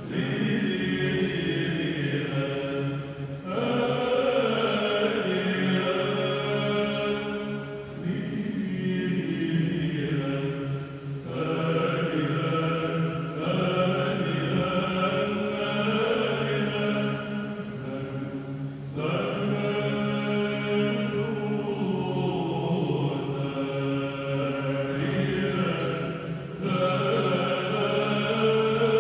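Choir of Byzantine psalts singing Byzantine chant in the plagal first mode: a melismatic passage on the wordless kratema syllables "te-ri-rem", with the melody moving over a steady held low drone (ison).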